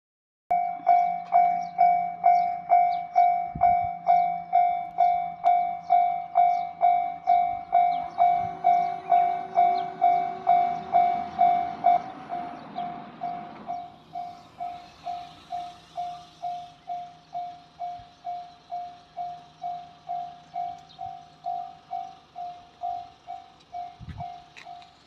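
Japanese railway level-crossing warning bell ringing at about two strikes a second, loud at first and quieter after about twelve seconds. A train runs past from about eight seconds in, with a rumble and then a high rail hiss.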